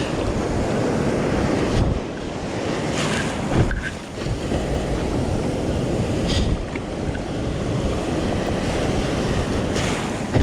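Wind buffeting the microphone over the wash of surf and water around a sea kayak being paddled out past the breakers, with a few brief splashes or knocks.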